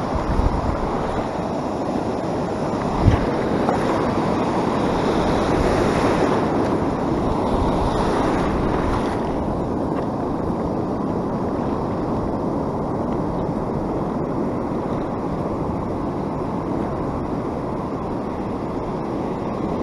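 Rough ocean surf breaking and washing around the legs of a wading angler, a steady rush of water that swells louder for several seconds early on and then eases. A single brief knock about three seconds in.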